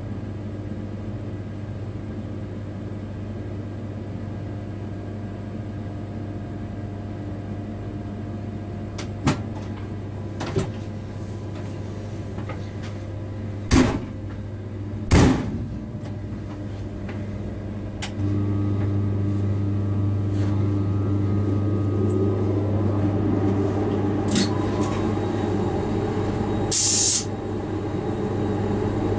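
Freight locomotive cab while running: a steady low hum with running noise, a few sharp clicks and knocks around the middle, and the hum and running noise stepping up louder about two-thirds in. A short hiss comes near the end.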